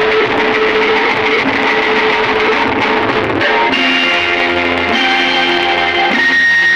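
Music with guitar, held notes changing to new chords a few times.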